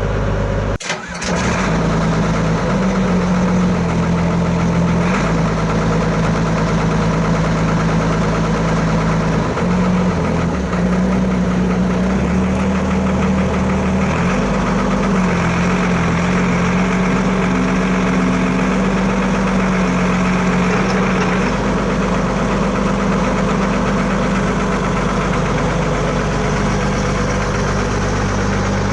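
Diesel engine of an old Sumitomo 20-ton hydraulic excavator running, its pitch shifting slightly up and down several times, with a brief break about a second in.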